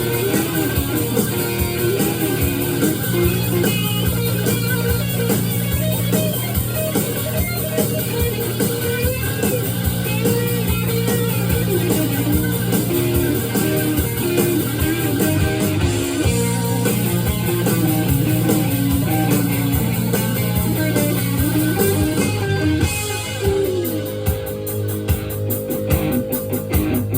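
Guitar-led rock music with a steady bass line and a wandering lead melody.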